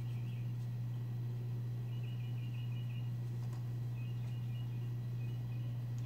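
A steady low hum, with faint rapid high squeaky chirps in two short runs, about two and about four seconds in.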